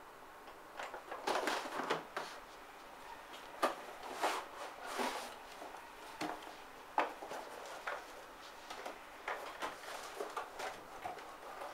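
Packaging being handled, with irregular rustling and scraping and sharp clicks. The rustles are heaviest in the first half, and lighter clicks follow near the end.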